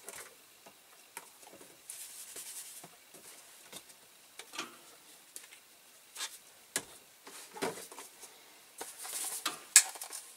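Faint, scattered small clicks and taps with brief rustles, and a sharper click near the end.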